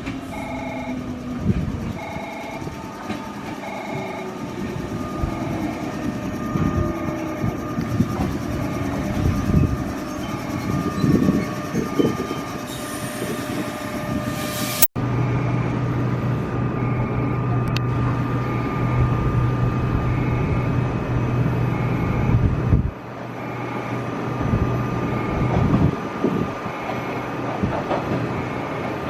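Electric commuter train at a station platform: wheels rumble and knock on the rails, and a steady low hum of the train's electrics runs for several seconds in the middle. A short bell-like tone repeats about once a second behind it.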